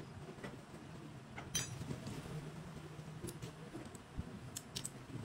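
Light metallic clinks and clicks, a few scattered strikes, as long steel studs and locking pliers are handled against each other during engine assembly, over a faint steady low hum.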